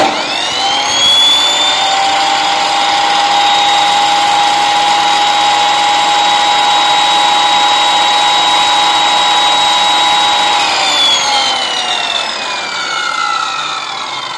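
Large 355 mm metal cut-off saw (2200 W abrasive chop saw) switched on: its motor whine rises to speed over about two seconds, then runs steadily without cutting. About ten seconds in it is switched off and the whine falls in pitch as the wheel spins down.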